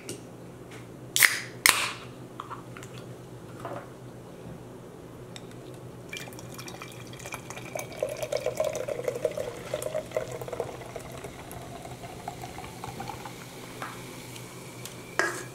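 A can of kola champagne soda snapped open with two sharp cracks about a second in. From about six seconds in, the soda pours into a stemmed glass, fizzing and gurgling, its pitch rising slowly as the glass fills.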